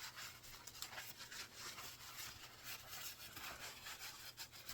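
A rag rubbing and wiping spilled engine oil off the underside of a motorcycle exhaust, faint uneven rubbing strokes.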